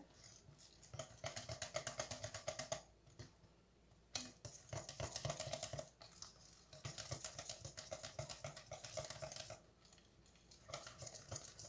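A hand working a thick, sticky paste of ground peanuts and melted chocolate in a glass bowl. It is heard as faint bouts of rapid soft ticking, four in all, with short pauses between.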